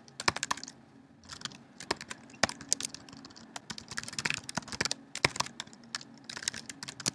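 Computer keyboard typing: irregular keystrokes in quick runs with brief pauses, as a line of code is typed.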